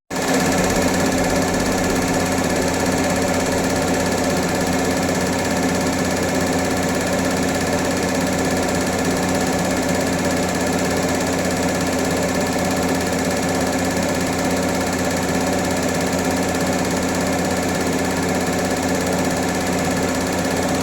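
An engine or motor running steadily at one constant speed, its pitch unchanging throughout, then cutting off abruptly at the end.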